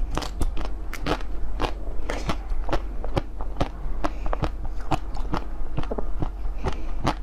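A person biting and crunching frozen food, a frost-coated blue ball: an irregular run of sharp, crackling crunches, several a second.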